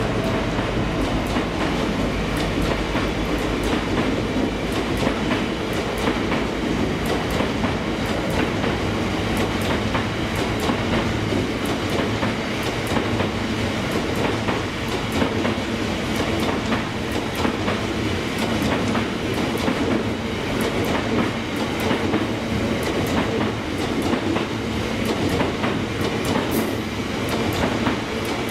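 Diesel train running through the station close by, its wheels clicking steadily over the rail joints over the low, steady hum of its engine.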